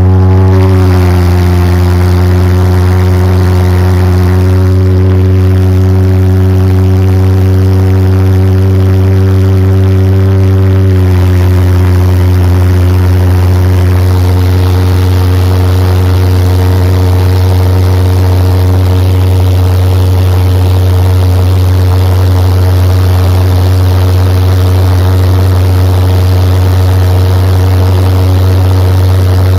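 Engine running at a loud, very steady drone, with a slight shift in its tone about eleven seconds in.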